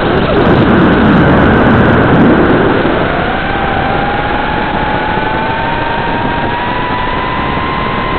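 FPV quadcopter's brushless motors and propellers: the steady whine drops away as the throttle is cut for a dive, giving way to a louder rush of air and prop wash for about three seconds. Then the whine returns and climbs steadily in pitch as the motors spool back up to pull out.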